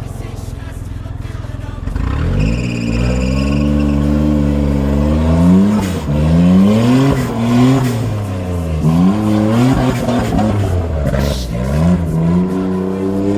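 Small off-road vehicle's engine idling low, then revving up and down over and over as it crawls over rough, steeply angled ground.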